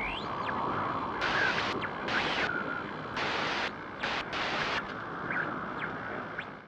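Static-like electronic hiss from the GoPro logo intro's sound effects. Louder bursts of noise cut in and out abruptly several times, and a few short whistling pitch glides sweep up and down.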